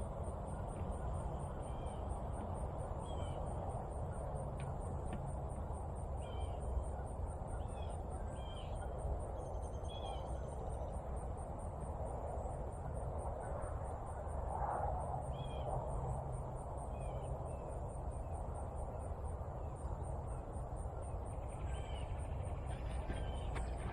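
Birds chirping on and off over a steady low background rumble.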